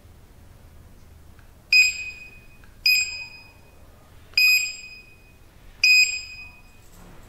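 Access-control keypad's built-in buzzer giving four short, high beeps about one to one and a half seconds apart, each starting with a faint key click: a four-digit PIN being keyed in.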